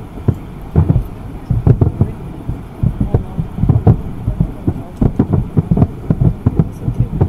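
Aerial fireworks bursting in a rapid, irregular string of low booms, several a second.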